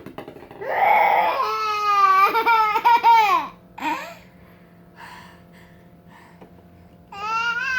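A baby's loud, high-pitched, drawn-out vocalizing, a run of long falling cries or squeals in the first few seconds and another starting near the end.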